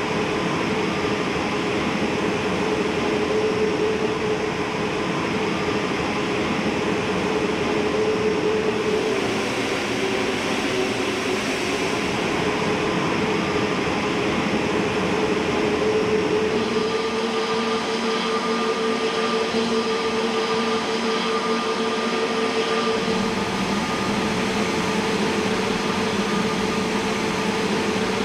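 Jet airliner engines running: a steady rush of noise with a few held whining tones that shift in pitch partway through.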